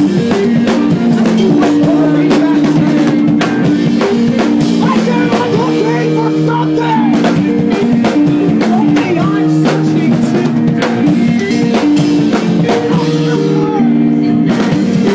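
A live math-rock band playing loudly: interlocking guitar notes over a full drum kit with kick and snare hits.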